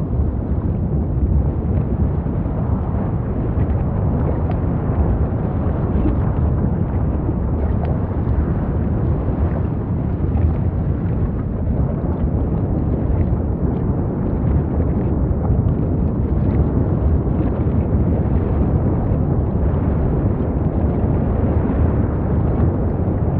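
Volcanic eruption rumbling steadily and deeply, with a few faint crackles over it.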